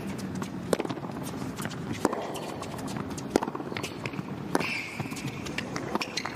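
Tennis rally on a hard court: four loud racket strikes on the ball about 1.3 s apart, with lighter bounces and footsteps between them. A short high shoe squeak on the court comes about four and a half seconds in.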